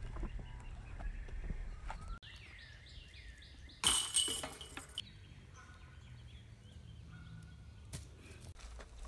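A disc golf throw: a sudden rush of noise lasting about a second as the player swings and lets the disc go. Before it, a bird chirps repeatedly, and low rumbling noise fills the first couple of seconds.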